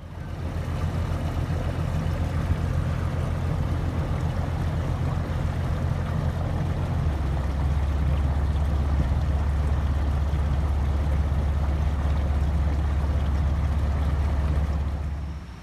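Steady low rumble and hiss of a small boat under way, with water and wind noise on the microphone. The rumble shifts lower about seven seconds in.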